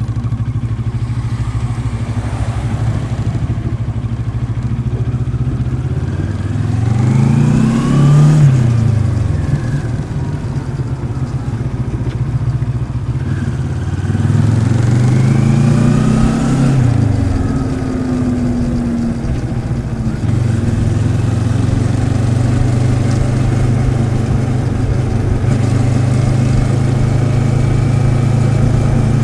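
The Moto Morini X-Cape's 650cc liquid-cooled parallel-twin engine runs steadily, then twice rises in pitch and falls away again as the bike accelerates and eases off, about 7 and 15 seconds in. From about 20 seconds it holds a steady note again.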